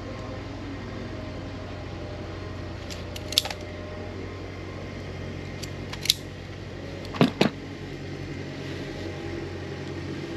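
Hand wire strippers snapping shut and pulling insulation off the ends of thin red and white wires: single clicks a few seconds in, then a louder double snap about seven seconds in. A steady low mechanical hum underneath throughout.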